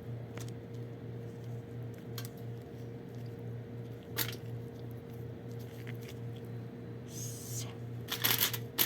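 Light handling noises of food being assembled by hand: a few soft clicks, then a brief rustle and a cluster of louder clicks and taps near the end, over a steady low hum.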